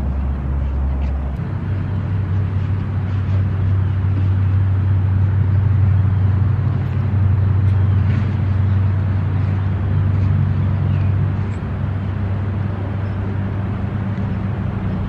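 Steady low hum and rumble with a hiss over it, like vehicle or traffic noise; the hum shifts up in pitch about a second and a half in.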